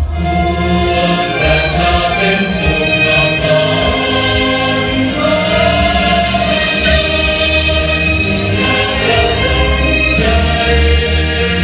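Show soundtrack played over a sound system: choir singing held notes over a deep sustained bass, with a few bright cymbal-like shimmers.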